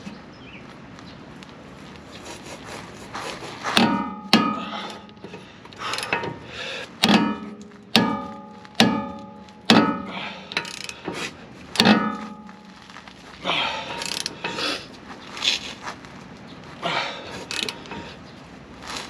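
Repeated hammer blows on the steel steering knuckle and ball-joint studs of a Dodge Ram 2500's front suspension, driving the ball joints loose. There are about a dozen sharp metal strikes at irregular intervals, starting about four seconds in, each ringing briefly.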